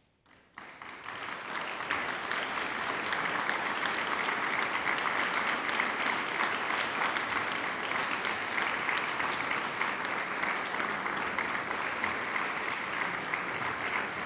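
Audience applauding. The clapping starts about half a second in, swells within a second or two and then holds steady.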